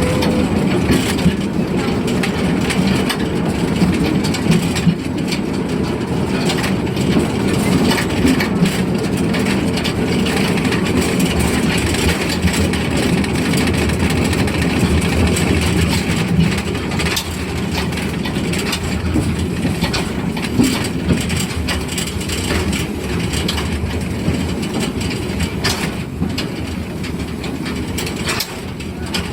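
Forest-railway train rolling along behind the Amemiya No. 21 steam locomotive, heard from on board: a steady low rumble of wheels on rail and rattling carriages, with many small clacks and knocks throughout.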